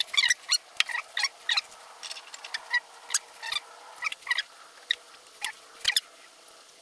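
Quick, irregular clicks of small metal parts being handled as an axlebox is fitted by hand onto the axle end of a miniature locomotive tender's wheelset. The clicks come several a second and thin out near the end.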